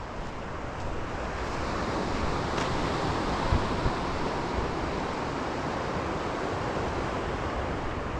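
Ocean surf breaking and washing up the shore, a steady rushing that swells over the first couple of seconds and then holds. Wind buffets the microphone underneath.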